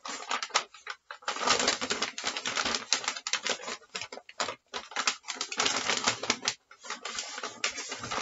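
Brown packing paper crinkling and rustling as a paper-wrapped bass guitar neck is lifted out of a cardboard box and handled: dense crackling in bursts, with short pauses about a second in and around the middle.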